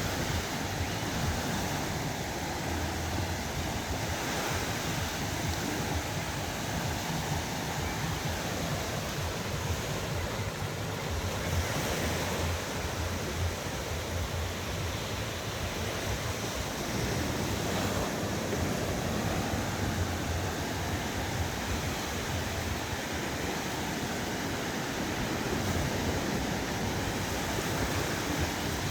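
Black Sea waves washing onto a beach in a steady rush that swells and ebbs, with wind rumbling on the microphone.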